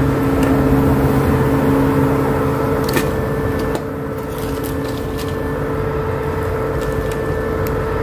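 Portable induction cooker running at 2000 W, giving a steady hum, with the lower part of the hum dropping out a little before halfway. Light clicks of a metal spatula against the frying pan come in the second half.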